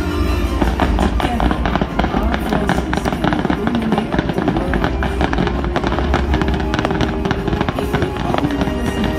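Fireworks launching and bursting in a dense run of rapid pops and crackles, over loud show music.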